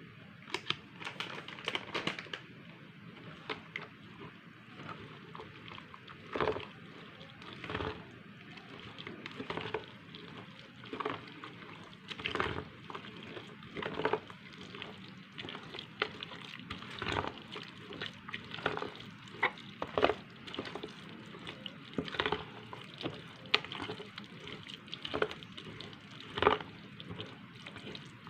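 A spoon clicking and scraping irregularly against cookware while working wet vegetable-fritter batter, with a faint steady hiss underneath.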